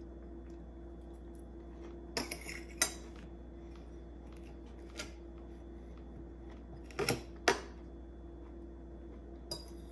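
Metal fork and knife clinking and scraping on a ceramic plate while cutting a Pop-Tart, in short bursts: a cluster about two seconds in, a single click near five seconds, two sharp clinks near seven seconds and one near the end. A steady low hum runs underneath.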